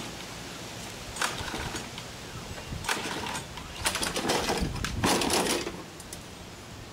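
Gas walk-behind lawn mower's recoil pull-start cord yanked about four times, each pull a short rasping whirr, the engine not catching.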